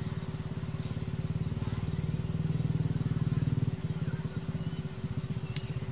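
A motorcycle engine idling steadily, a rapid even pulsing that swells slightly in the middle.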